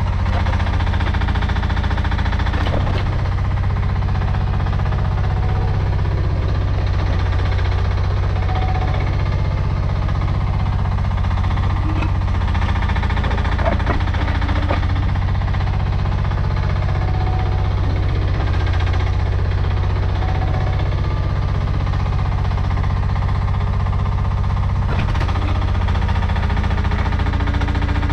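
Chinese mini excavator's engine running steadily under load while it digs very hard clay, with a few sharp knocks along the way.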